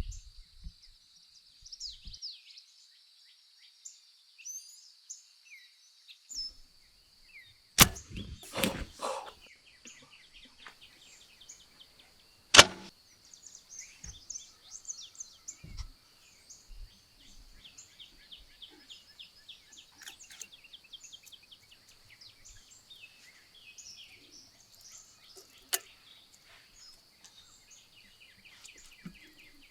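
Dawn birdsong: many small chirps over a steady high hum. A cluster of sharp knocks comes about eight seconds in, and one loud crack a few seconds later, with a fainter snap near the end.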